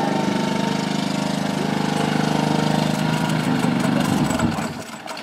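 Engine of a wheeled amphibious boat idling steadily, then stopping about four and a half seconds in.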